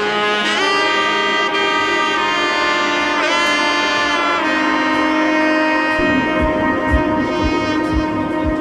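Background music led by a saxophone-like horn playing held, bending notes, with a light beat coming in about six seconds in.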